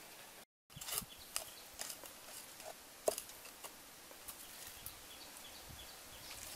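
Scattered sharp taps and knocks of wood sticks and a knife being handled on the ground, with one louder knock about three seconds in. This follows a brief total dropout about half a second in.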